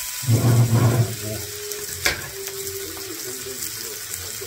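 Pork belly sizzling and crackling on a hot grill pan, with a loud low thud about half a second in and a single sharp click about two seconds in.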